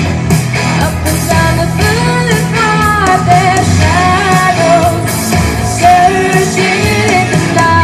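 A singer performing a rock song, the voice sliding between held notes over a steady band backing with guitar and drums.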